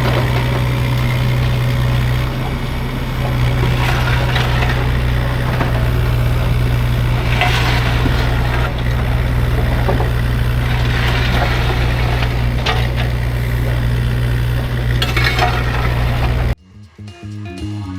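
CAT 305.5 mini excavator running steadily under load, with the bucket scraping and clanking in the dirt several times. About a second before the end, the sound cuts off sharply to background music.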